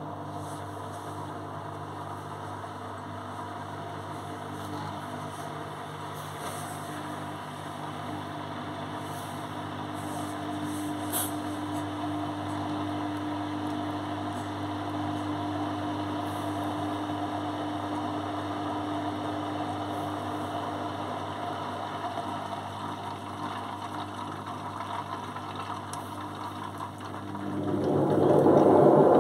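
Beko front-loading washing machine running in test mode, giving a steady low hum. About 27 seconds in, the drum starts tumbling the wet laundry and the sound quickly grows much louder, with water sloshing.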